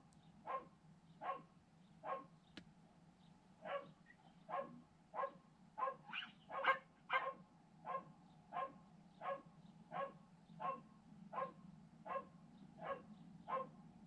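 A dog barking over and over at an even pace, roughly one short bark every three-quarters of a second, over a steady low hum.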